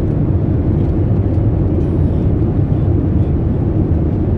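Steady cabin noise of a Boeing 787 airliner in cruise flight: a constant low rumble of engines and airflow, heard from an economy seat.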